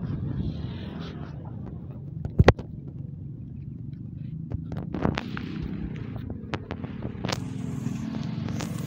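Steady low rumble of vehicles, with a sharp double knock about two and a half seconds in and scattered light clicks later on.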